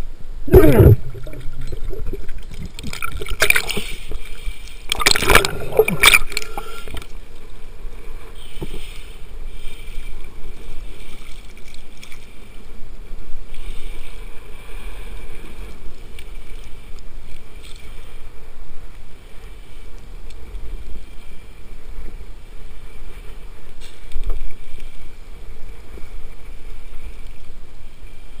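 Water splashing and gurgling against a camera held at the waterline as a snorkeling spearfisher surfaces and swims. There are several loud splashy bursts in the first six seconds, then steady sloshing of water.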